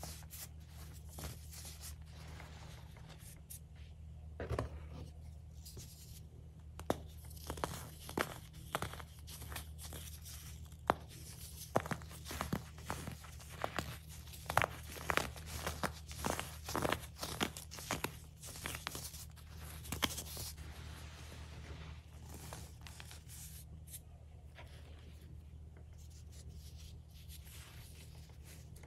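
Hardened baking soda being crushed and crumbled by hand, including a star-shaped piece: crisp crunches and crackles coming fast in the middle stretch, sparser and softer at the start and near the end as powder is sifted.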